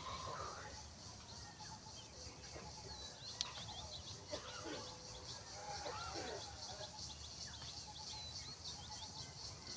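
Outdoor ambience full of birdsong: many small, high chirps repeating rapidly throughout, with a few louder, lower swooping calls. A single sharp click comes about three and a half seconds in.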